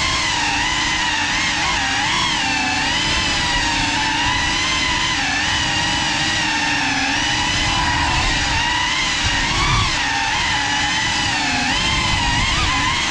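Cinelog35 FPV cinewhoop drone in flight, its brushless motors and ducted propellers giving a steady buzzing whine whose pitch wavers up and down as the throttle changes.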